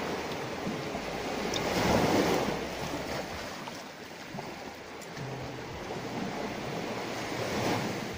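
Sea waves washing in at the shore, a steady rush that swells loudest about two seconds in and again near the end.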